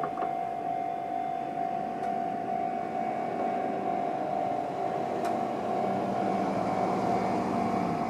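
Japanese level-crossing alarm sounding its steady electronic warning tone in the Chichibu Railway style while the lights flash and the barriers are down. A low rumble grows in the second half.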